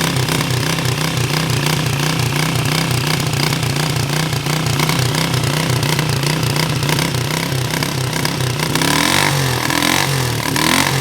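Single-cylinder engine of a 1999 carbureted Honda CG 125 motorcycle running steadily in neutral on its stock exhaust, with an even, regular exhaust beat.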